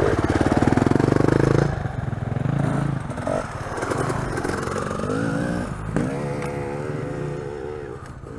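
Dirt bike engines revving as the bikes pass close by. From about six seconds in, a single, quieter dirt bike engine is held at high revs, its pitch wavering a little, while a bike climbs the steep hill.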